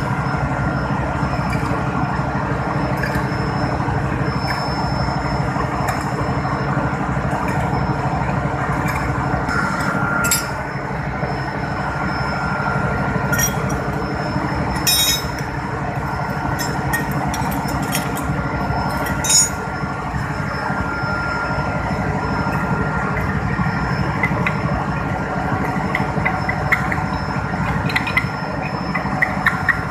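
A steady mechanical drone from machinery running nearby, with a few thin steady tones in it. Scattered sharp metallic clinks come as the steel jaws and arms of a gear puller are handled and repositioned on a pump impeller.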